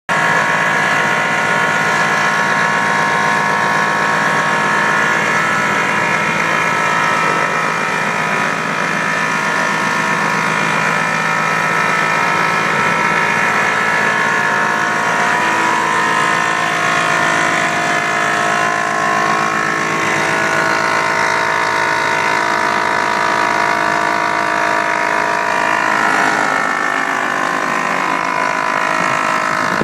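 Zanzottera MZ 34 single-cylinder two-stroke engine in a Robin ultralight, running steadily at a constant speed during a ground run-up of the newly installed engine.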